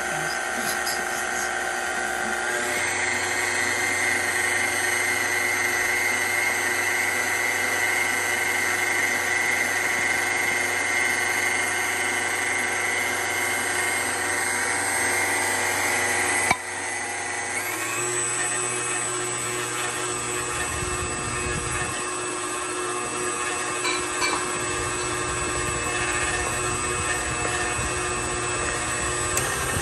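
KitchenAid stand mixer running steadily as it beats a cake batter, a motor whine with a few steady tones. The pitch shifts about two seconds in, and again just past halfway after a short click.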